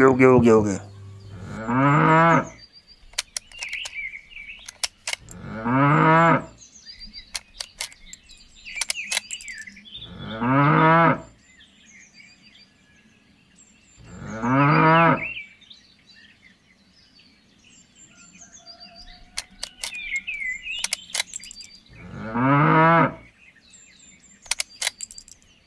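A cow mooing five times, each moo about a second long and a few seconds apart, with faint bird chirps in between.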